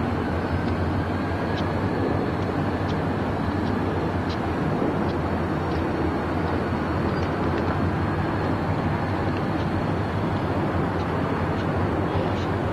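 Steady low rumble of diesel locomotives working in a rail yard, with a few faint light ticks over it.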